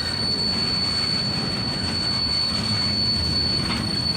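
Freight train cars rolling past, the wheels rumbling on the rails under a steady high-pitched squeal from the wheels.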